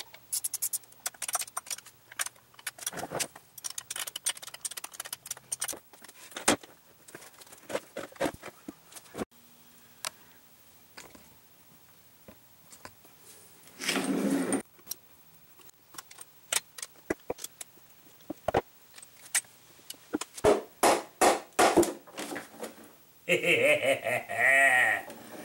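Metal clinks and knocks as tools and parts of a small benchtop horizontal milling machine are handled during teardown. There is a short scraping rush about halfway through, and near the end a longer scrape with a wavering, ringing tone as the machine's column casting is tipped over.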